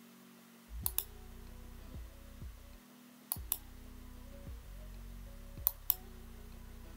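Computer mouse button clicking: three pairs of sharp clicks about two and a half seconds apart, over quiet background music.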